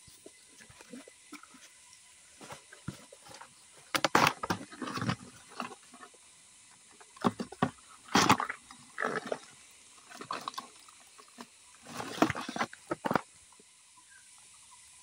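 Handling noise from crab hunting by hand: several short bursts of rustling and scraping as hands work through leaf litter and soil at a burrow and handle a plastic container.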